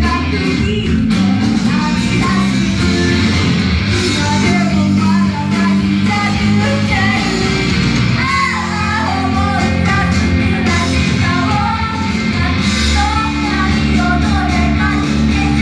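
Idol group performing live: female voices singing over loud rock music with electric guitar.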